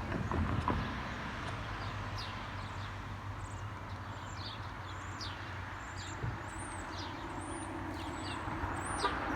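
Small birds chirping repeatedly in quick, short downward-sliding notes, over a steady low rumble of wind on the microphone. A couple of knocks about half a second in.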